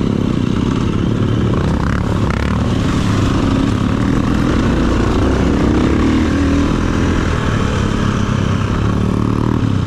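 KTM enduro dirt bike's engine running under varying throttle while it is ridden over a rocky trail, with the engines of the other bikes ahead mixed in.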